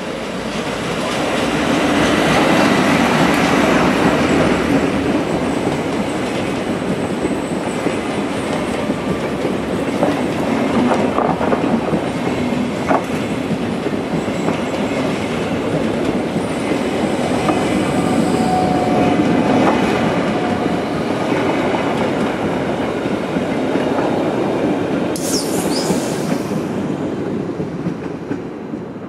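SBB Re 421 electric locomotive (an Re 4/4 II variant) and its string of passenger coaches running past: a steady rumble of wheels on rail with clicks over rail joints and points, and brief wheel squeals. It dies away near the end as the last coach clears.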